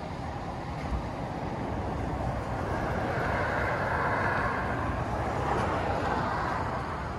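Road traffic: a vehicle's rushing noise swells for a few seconds in the middle and then fades, over a steady low rumble.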